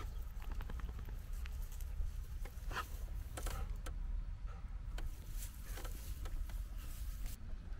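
Dry grass and weed stems rustling and crackling in short irregular bursts as a white Swiss shepherd dog moves and sniffs through tall grass, over a low wind rumble on the microphone.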